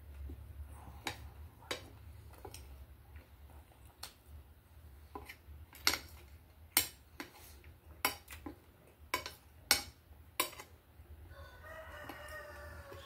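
Metal fork and spoon clinking and scraping against a ceramic plate, about a dozen sharp clinks spread out over a low steady hum. Near the end a rooster crows once in the background, a drawn-out call of about two seconds.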